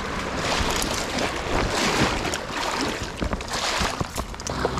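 River water swishing and splashing around a wading angler's legs as he moves through the current, in repeated surges about once a second.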